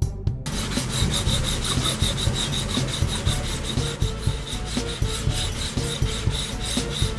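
Cartoon sound effect of a cloth rubbing and polishing a truck's metal body in fast, even strokes. It starts about half a second in.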